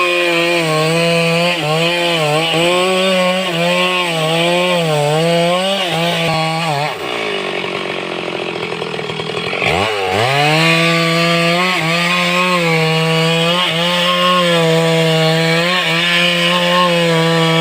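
Stihl chainsaw running at full throttle and cutting wood, its engine note dipping and recovering as the chain bites. About seven seconds in it drops to idle for around three seconds, then revs sharply back up and carries on cutting.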